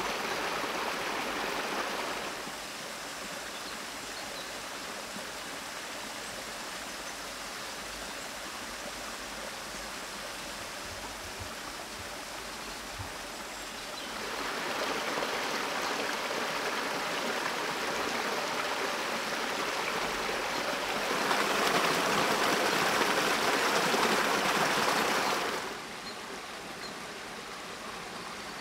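Shallow forest stream running over rocks in small cascades, a steady rushing of water that gets louder and softer in steps, loudest a few seconds before the end.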